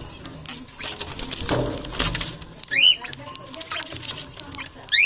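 Parrot giving two short, sharp, rising squeaks, one about halfway through and one at the very end, over steady small clicking and scratching.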